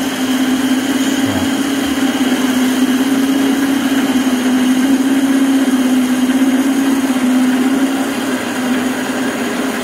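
Three Rivers horizontal metal-cutting band saw running with a steady hum, its blade cutting through an exhaust pipe to cut out the catalytic converter.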